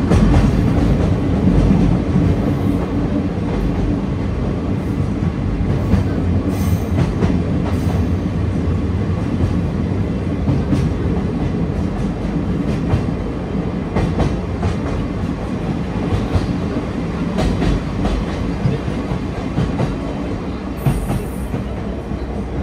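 Sagano Romantic Train running along the line, heard from its open-air carriage: a steady heavy rumble of wheels on rail, with scattered clicks throughout.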